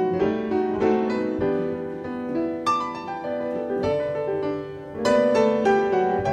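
Piano music played back from tape on a Sony TC-730 reel-to-reel deck, a run of struck notes and chords, showing the deck playing properly again now that its pinch roller is back in place.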